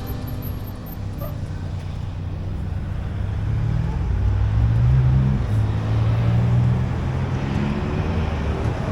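A motor vehicle passing, its low engine note rising and swelling about halfway through, then easing off, over steady road and wind noise.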